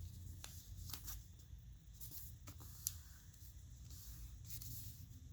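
Faint rustling and soft crackling of origami paper being handled and folded, a diagonal edge brought to the middle and creased, with one sharper tick about three seconds in.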